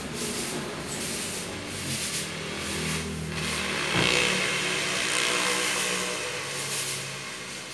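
An engine running, with a low drone that grows louder about halfway through and fades away near the end, as a passing motor vehicle does.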